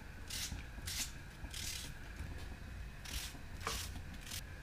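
Dry, papery onion skin crackling and rustling as it is peeled off by hand, in about six short scratchy bursts, over a steady low hum.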